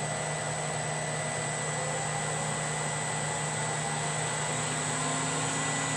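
Laguna wood lathe's motor and spindle running on a replacement variable frequency drive, a steady hum with a thin high whine, getting slightly louder as the speed is turned up towards about 1500 RPM. A new low tone joins about two-thirds of the way through.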